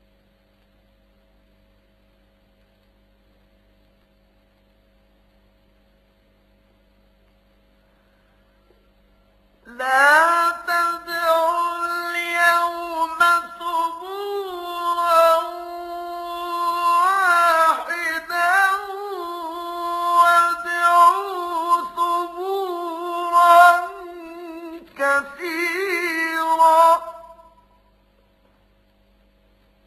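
A faint steady hum, then, about ten seconds in, a man's voice chanting Quran recitation in one long melodic phrase of held notes with ornamented pitch turns. The phrase lasts about seventeen seconds and breaks briefly once near its end before the hum returns.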